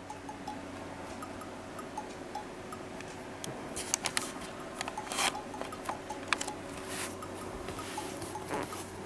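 A cat sniffing and brushing against a styrofoam box trap propped on a stick: a run of short clicks, scuffs and rubbing about four to seven seconds in. Light background music plays underneath.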